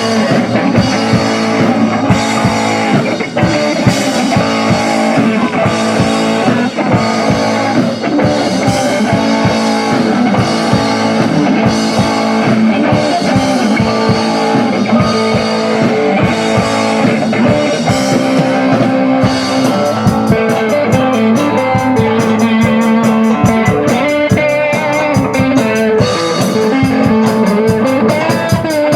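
Rock music with guitar and drum kit, loud and continuous, the beat turning faster and more driving about twenty seconds in.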